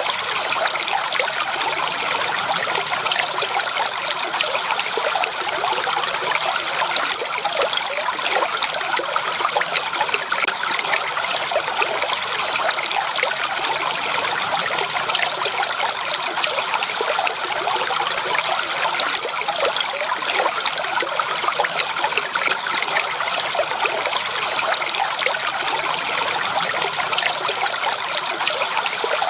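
Shallow stream water running and trickling over stones, a steady babble of many small splashes.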